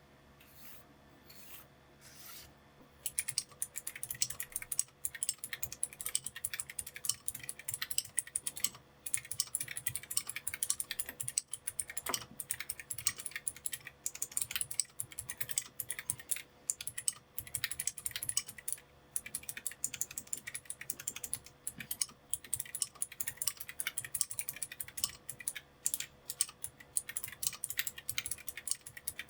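Typing on a mechanical keyboard fitted with clicky TTC Golden Blue switches: a few separate key presses, then fast, continuous clacking and clicking from about three seconds in.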